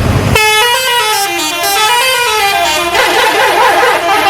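Tour bus telolet horn, a multi-tone musical air horn, playing a quick run of stepping notes that goes up and down. From about three seconds in it gives way to a denser blare of several horn tones overlapping.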